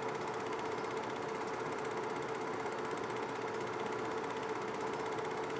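Film projector running: a steady, rapid mechanical clatter over a constant hum.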